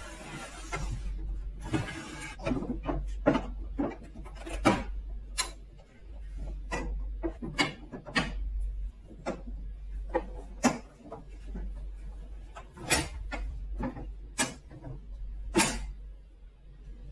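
Irregular light plastic clicks and taps as fingers swing and knock the small hinged stall gates of a plastic toy horse stable, with a few sharper clacks among them. A steady low hum runs underneath.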